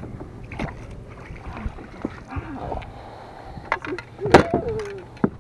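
Scattered knocks and clicks of a fish being landed and handled in a landing net on a boat's deck, over a low rumble of wind and water. A short vocal cry, falling in pitch, a little over four seconds in.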